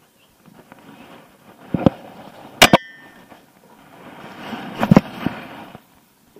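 Handling noise from an angler casting a rod and reel in an aluminum jon boat: rustling, with a few sharp clicks and one loud metallic clank about two and a half seconds in that rings briefly.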